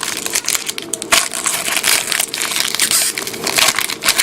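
Trading-card pack wrapper being opened and crinkled by hand: a dense run of crackling and small snaps.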